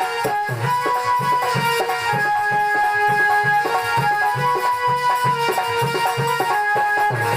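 Instrumental devotional music with no singing: a melody of held notes over a steady, even drum beat.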